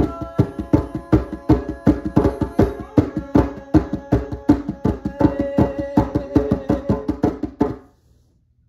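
Djembe played fast with bare hands, a quick steady run of slaps and tones over held melodic notes, stopping suddenly near the end.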